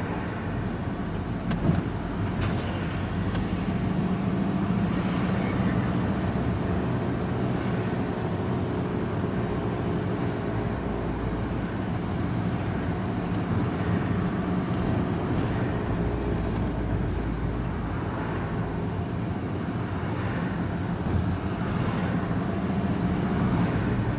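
Vehicle engine and road noise heard from inside the cab while driving on after pulling away from traffic lights: a steady engine hum, with a single sharp click about a second and a half in.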